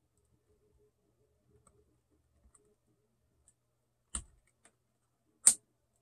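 A plastic pry tool working the battery power cable connector off a laptop motherboard: faint small ticks, then two sharp clicks about a second and a half apart, the second one the loudest.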